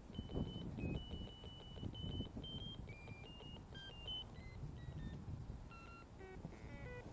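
Ferret locator receiver beeping: a string of held electronic tones that jump between pitches as it is moved over the ground, picking up a collared ferret about six feet down. Rustling of leaf litter and clothing underneath.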